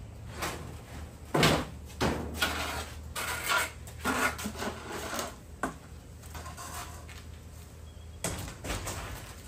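Irregular knocks, scrapes and clatter of hand demolition work, siding being pulled off a porch wall, over a steady low hum.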